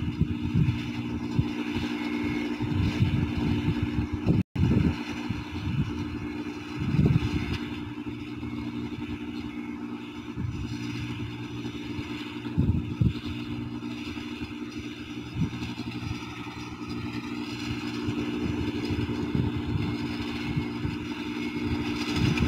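Rice combine harvester's engine running steadily with an even hum, with irregular low rumbling surges every few seconds. The sound cuts out for an instant about four and a half seconds in.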